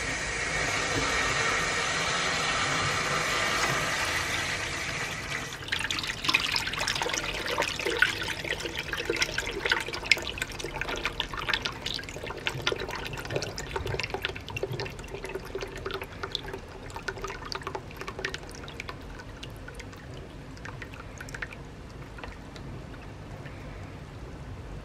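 Water flushed out of a radiator gushing from a hose into a plastic bucket, carrying black sludge. A steady rushing hiss for the first five seconds or so, then splashing and churning in the bucket that slowly grows quieter as it fills.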